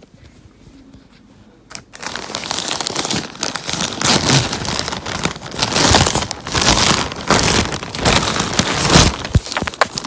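Plastic mailing bag crinkling and crackling as it is handled, loud and continuous from about two seconds in.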